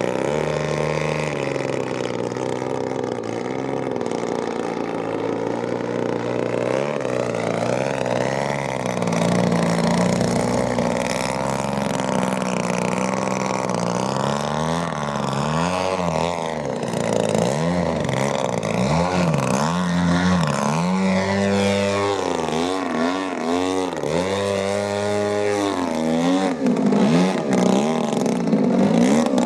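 Two-stroke gasoline engine of a giant-scale 104-inch Slick aerobatic RC airplane, a DA engine, running hard through throttle changes. Its pitch swings up and down again and again as the plane manoeuvres and passes.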